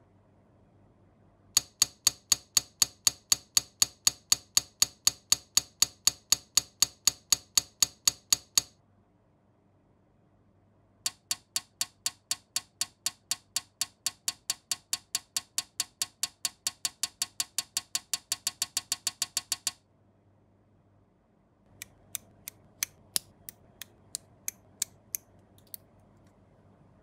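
Aerosol spray-paint can being shaken: its mixing ball rattles in two long runs of sharp, even clicks at about five a second, then a few last scattered shakes near the end.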